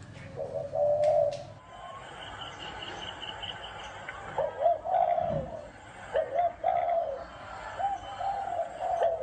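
Spotted dove cooing in short, repeated phrases, the coos coming quickly one after another in the second half. Another bird gives a fast run of high chirps near the middle.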